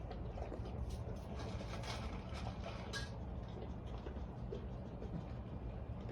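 Steady low mechanical hum with scattered small clicks and rustles of handling over it.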